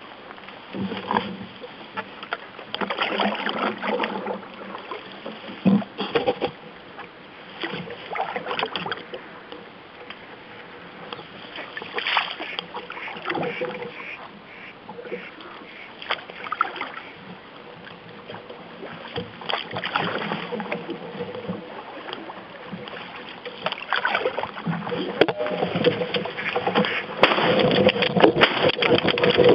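A canoe moving down a small river: irregular paddle strokes and water swishing and splashing against the hull, with rustling, growing louder near the end as the canoe pushes in under overhanging branches.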